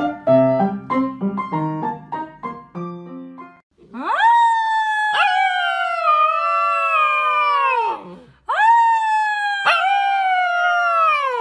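A tune of short plucked notes plays for about three and a half seconds. Then a fluffy husky-type puppy howls twice in long howls, each rising quickly and then sliding slowly down in pitch: the first lasts about four seconds and the second about three.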